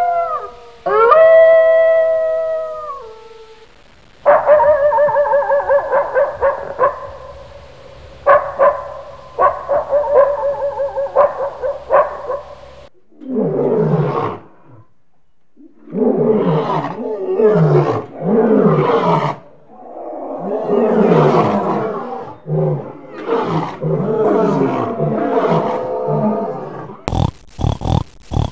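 Wolves howling with dogs joining in quick, repeated yelping barks, then, about 13 seconds in, a lion roaring: a series of deep, rough roars trailing into grunts. A few short sharp sounds near the end.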